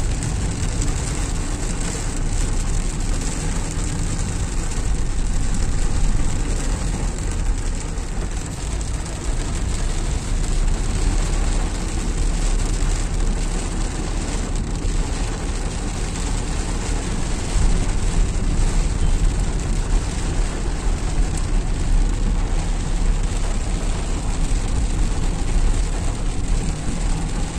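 Steady rumble of a car's engine and tyres on a wet road, heard from inside the moving car, with a hiss of rain and road spray.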